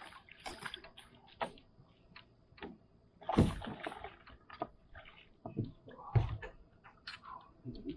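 Water sloshing and splashing with scattered knocks and clicks against a kayak's hull, as a bass is brought in and handled aboard. There are louder, heavier thumps about three and a half seconds in and again near six seconds.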